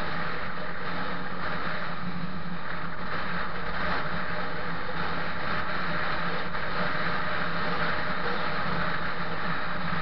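Steady wind and road noise rushing over the microphone of a moving vehicle, a constant hiss with a steady low hum underneath.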